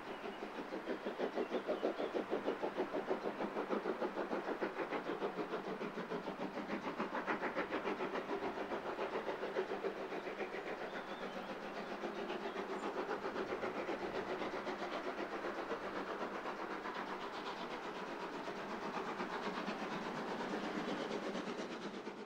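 Steam locomotive working, its exhaust beating in a rapid, even rhythm with hiss.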